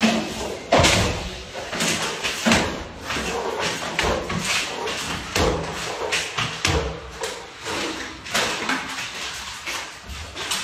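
A string of irregular thumps and knocks, with scraping in between, from drywall finishing work: trowels and hawks working joint compound on the ceiling and buckets and stilts knocking on the floor.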